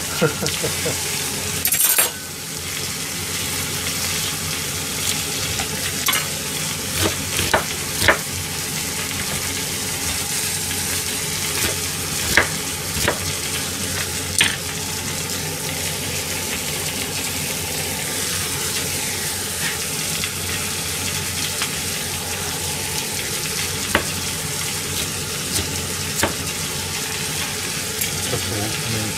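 Steady sizzling of food frying in a pan, with a knife now and then knocking sharply on a cutting board as vegetables are chopped.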